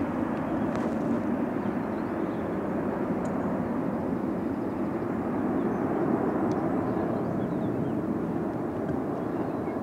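Boeing 747's four jet engines at takeoff power as the airliner climbs away, a steady rumble that fades a little near the end.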